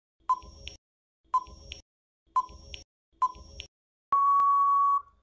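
Quiz countdown timer sound effect: a short electronic beep about once a second, four times, then a long steady beep of about a second as the countdown runs out.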